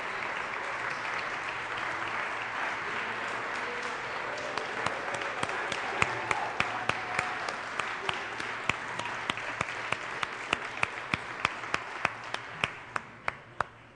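Audience applauding after a performance, with sharp claps falling into a steady beat of about three a second from about four seconds in. The applause dies away near the end.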